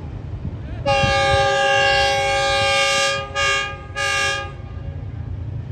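Diesel locomotive's multi-tone air horn sounding as the train approaches, warning people crossing the track: one long blast of about two seconds, then two short blasts, over a low steady rumble.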